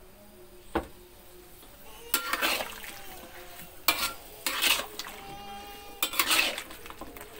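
Metal spatula stirring sliced eggplant in a metal wok: three short scraping strokes against the pan, with sharp metal clinks in between.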